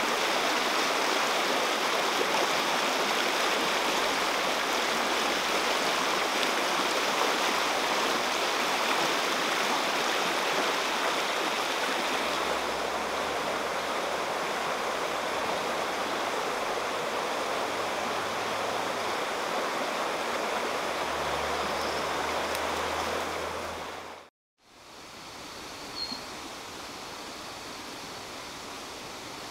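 Fast-flowing stream rushing over rocks, a steady, even hiss of water. Near the end it cuts off suddenly, leaving a much quieter outdoor background.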